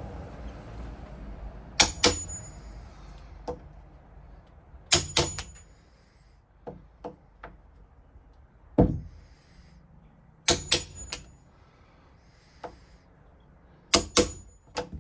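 Hammer striking a door-hardware corner punch, cutting square corners into the routed latch-plate recess in the door edge. The blows come in bursts of two or three sharp hits with pauses between them, some of them with a brief metallic ring, and a few lighter taps in between.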